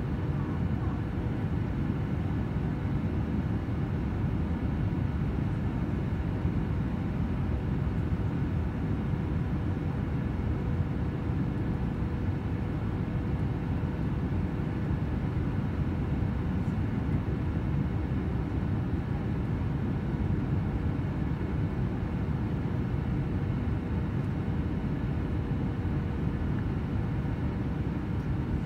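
Steady cabin noise of a jet airliner descending toward landing, heard inside the cabin by the window: a low, even rush of engine and airflow with a faint steady tone running through it.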